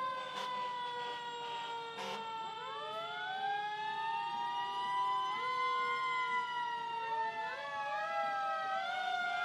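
Several emergency vehicle sirens sounding at once, their tones overlapping and gliding up and down. One wail rises about two and a half seconds in and then slowly falls, and a few short sharp knocks come within the first three seconds.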